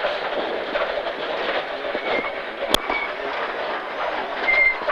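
Cabin noise inside a moving rally car: road and drivetrain noise with steady rattling of the stripped interior, a few brief squeaks, and one sharp click a little under three seconds in.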